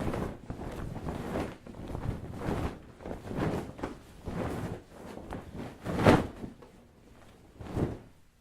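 A series of separate thuds and knocks, roughly one a second, the loudest about six seconds in and a last one near the end.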